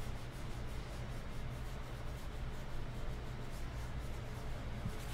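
Paper towel rubbed back and forth over a freshly stenciled painted board, wiping and distressing the paint; a faint, scratchy rubbing over a steady low hum.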